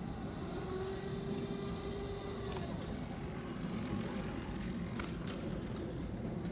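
Electric commuter train running past: a steady rumble of wheels on the rails, with a steady tone holding for about a second and a half, starting about a second in.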